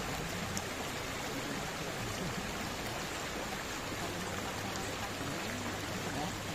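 Shallow river running over rocks: a steady rush of water.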